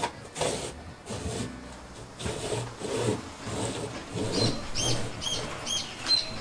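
Coarse-toothed hand saw (a squash saw) cutting through a large, thick-skinned Angola squash, with rasping back-and-forth strokes about two a second.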